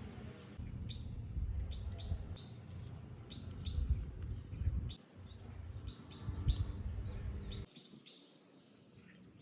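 Birds chirping: short high calls repeated every half second or so, over a low rumble that stops near the end.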